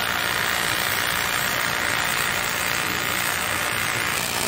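TIG welding arc from a Tân Thành TIG 315 AC/DC welder, a steady unbroken hiss with no change in pitch or strength.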